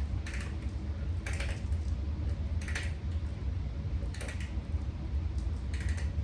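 A screw or bolt being turned by hand into a table's brace bar, with a short scraping click at each turn, five in all about a second and a half apart, over a steady low hum.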